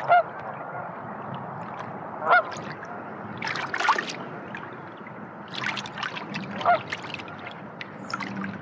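Canada geese honking on the water, three loud honks a few seconds apart, with splashing of birds in the water between them.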